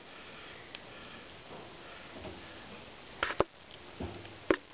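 Fillet knife and hands working a northern pike fillet on a cleaning board, lifting out the rib bones: a few short sharp taps and knocks, the loudest a little past three seconds in, over a low background hiss.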